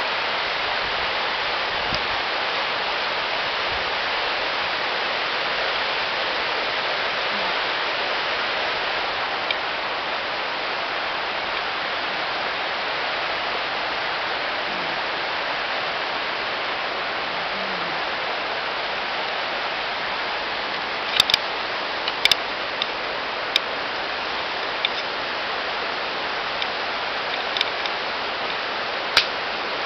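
A steady, even rushing hiss, like running water or rain, with a handful of sharp, irregular clicks in the last third.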